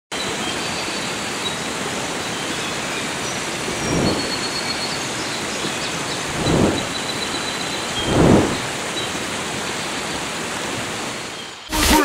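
Steady rushing noise, like falling water, with three swelling whooshes about four, six and a half and eight seconds in, and faint thin high calls over it. It drops away at the very end as music with a beat comes in.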